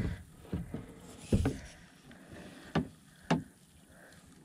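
A few short, sharp knocks and taps on a plastic kayak, about four in all, two of them louder, with a faint steady background between them.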